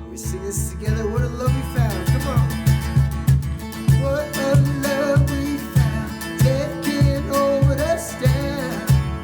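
Music: a song with guitar and a steady low beat of about two strikes a second.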